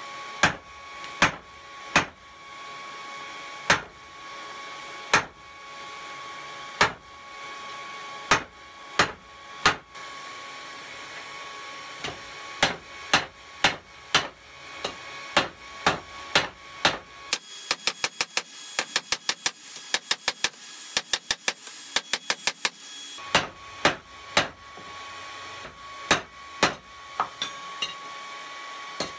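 Hand hammer striking red-hot rebar on a small cast-iron anvil. Single blows come about a second apart, then quicken. Past the middle there is a rapid flurry of lighter taps for several seconds, and then slower blows resume.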